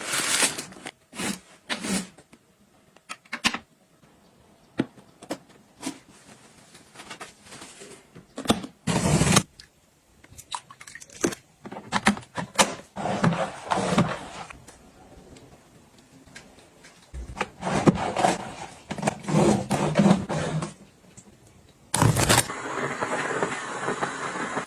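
A string of short clicks and knocks with several longer scraping, rustling stretches from objects being handled and set down.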